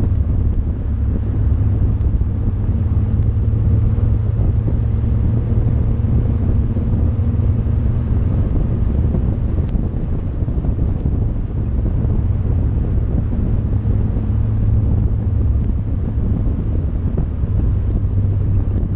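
Kit car's engine and exhaust running as a steady low drone while it drives along, with wind buffeting the microphone.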